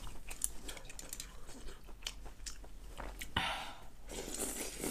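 A person chewing a mouthful, with small wet mouth clicks, then slurping up rice noodles in a noisy rush near the end.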